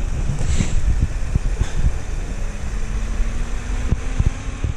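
Chevrolet 3.6-litre V6 idling after a remote start, with wind buffeting the microphone and a few light thumps.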